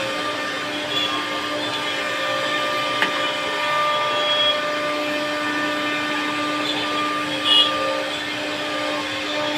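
CNC wood router running, its spindle giving a steady whine over a rushing noise. A sharp click comes about three seconds in, and a brief louder high squeal about three-quarters of the way through.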